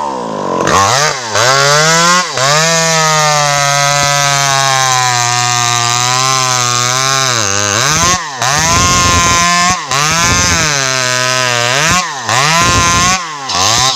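A home-assembled 52cc two-stroke chainsaw running loud at high revs. It is revved up and held steady for about five seconds, then the throttle is blipped several times, the pitch falling and rising again with each blip.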